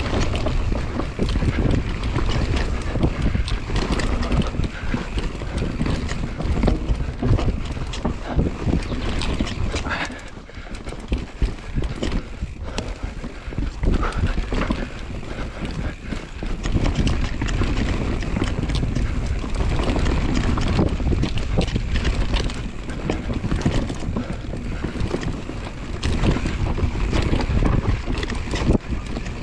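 Mountain bike descending a dirt forest trail at speed: wind buffeting the microphone over tyre roar on dirt and a constant clatter of knocks and rattles from the bike over roots and bumps. It eases briefly about ten seconds in.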